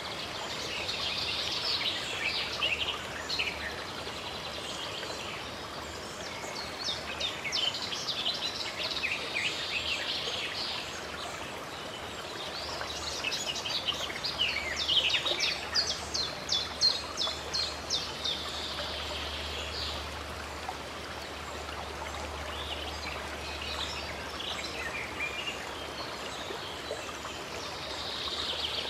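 Songbirds singing in several bouts of quick, high chirping phrases over the steady rush of running water.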